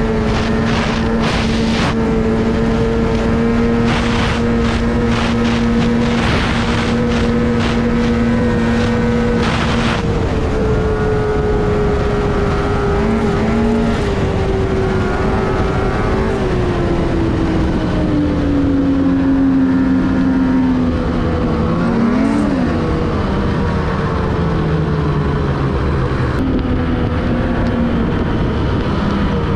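Ski-Doo MXZ 800 snowmobile's two-stroke engine running at steady trail speed, heard from the rider's seat with wind buffeting the microphone. About ten seconds in the engine note falls steadily as the sled slows. A little after twenty seconds there is a quick rev up and back down.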